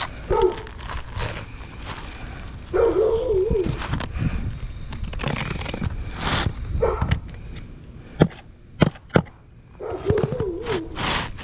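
Scraping, crackling and sharp knocks of an asphalt roof shingle being worked and slid up under the course above. A dog whines briefly three times: near the start, about three seconds in, and near the end.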